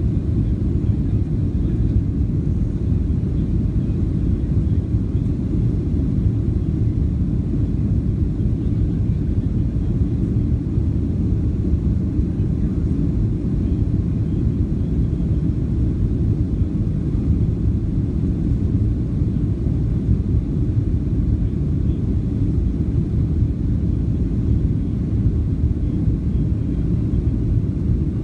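Steady low rumble inside the cabin of a Boeing 737-700 climbing out after takeoff: its CFM56-7B jet engines and the rush of air over the fuselage, unchanging in level.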